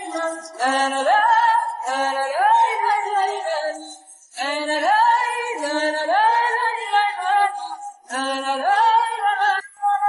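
Background music: a woman singing in long, gliding melodic phrases, with short breaks between phrases.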